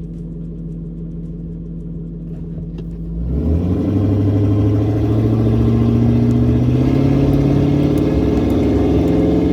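Ford 5.4 L Triton V8 in a 2002 F-250 running at idle. About three seconds in it gets louder and its pitch creeps up slightly, then holds. This is the rough, searching idle that the owner puts down to a dirty or failing idle air control valve.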